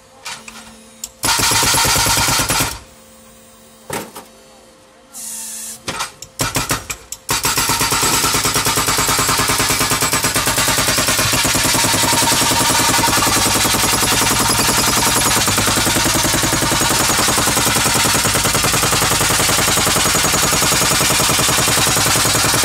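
Hydraulic breaker on a remote-controlled demolition robot's arm hammering a concrete floor: a few short bursts of hammering with pauses between them, then, from about seven seconds in, continuous rapid blows.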